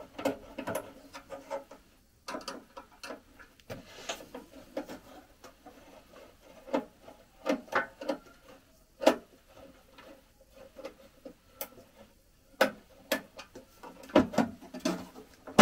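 A hand screwdriver undoing the cover screws of a Victron RS450/100 MPPT charge controller, with the housing being handled: irregular small clicks and taps, and a few louder knocks near the end as the cover is worked loose.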